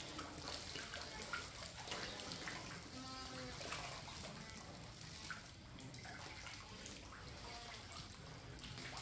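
A crowd of catfish feeding at the water surface on floating pellets, churning the water in a continuous run of small, irregular splashes.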